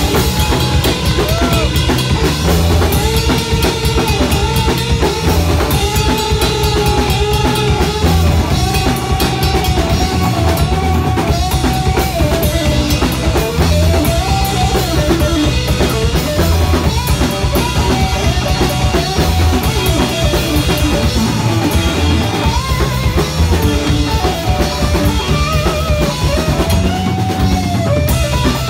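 Rock band playing loud and full with drum kit and bass underneath and a melody line on top that bends up and down in pitch.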